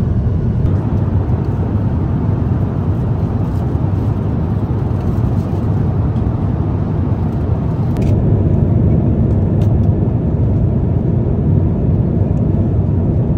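Steady low rumble of an Airbus A350-900 cabin in cruise, the noise of the engines and the airflow, with a few faint clicks. It gets slightly louder about eight seconds in.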